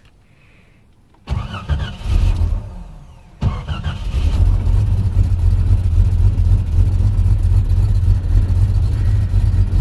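1989 Jeep Cherokee XJ's 4.6-litre inline-six cranked on the starter after a dry fuel rail: a first attempt fades out. About three and a half seconds in a second try catches, and the engine keeps running steadily.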